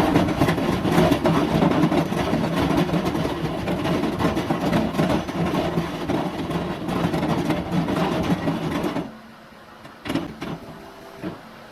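Skid steer working a cutting attachment: engine and cutter running loudly with a low steady hum and a dense spray of rapid cracks and knocks. About nine seconds in the cutting stops and the machine keeps running more quietly, with a few separate knocks.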